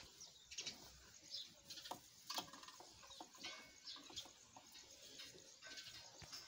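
Water buffalo eating dry chaff and grain from a stone trough: faint, scattered crunching and rustling clicks as their muzzles work through the feed.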